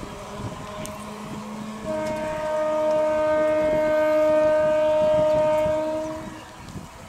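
Electric train's air horn sounding one long, steady blast of about four seconds, starting about two seconds in, over the running noise of an approaching MEMU passenger train.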